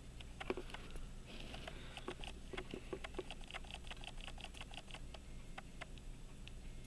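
Faint, irregular small clicks and taps from handling a pocket watch movement with tools, several a second, over a low steady hum.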